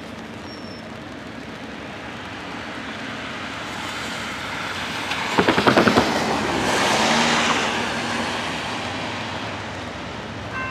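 A road vehicle passing close by: its tyre noise swells to a peak past the middle and then fades. A quick run of about seven knocks comes just before the peak.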